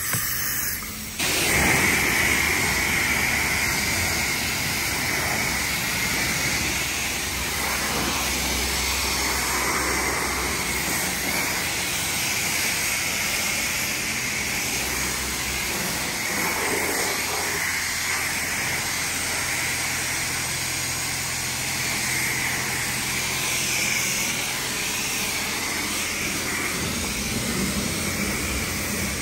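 Automatic car wash equipment running with a steady, loud hiss that starts abruptly about a second in.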